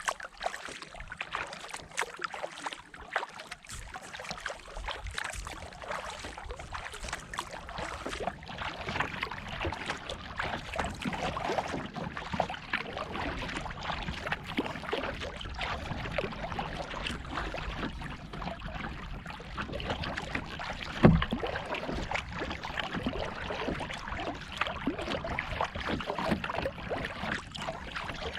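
Kayak paddling: the paddle dipping and water splashing and trickling around the boat, with many small irregular drips and splashes. About three-quarters of the way through there is a single loud, low thump.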